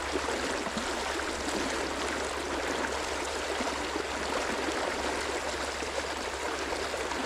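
River water flowing over stones, a steady, even rush of running water.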